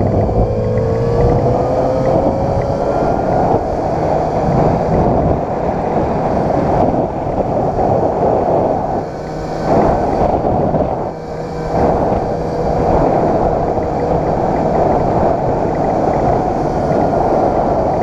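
Wind rushing over the microphone on a moving Yamaha XJ6 motorcycle, with its inline-four engine running underneath. The engine pitch rises over the first few seconds as it accelerates, and the noise drops briefly twice about halfway through.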